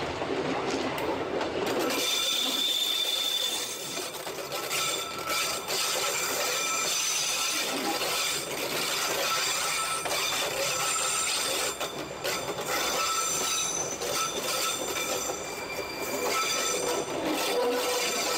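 Odontotos narrow-gauge rack railway train running along the track, with a steady rumble and rattle. High thin wheel squeals come and go over it, with a few short knocks.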